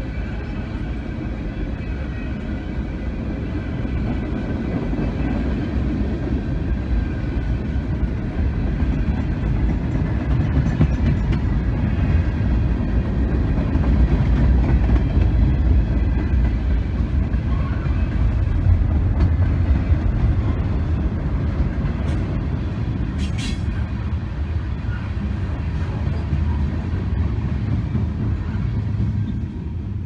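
Freight train of tank cars and hoppers rolling past: a steady low rumble of wheels on rail that swells to its loudest about halfway through, with a couple of short, sharp high screeches about two-thirds of the way in.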